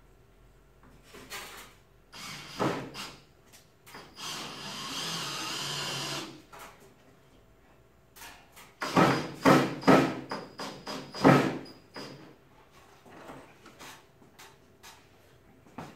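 A power drill runs steadily for about two seconds, driving into the wooden mug-holder board. A few seconds later comes a run of loud, sharp knocks and clatter.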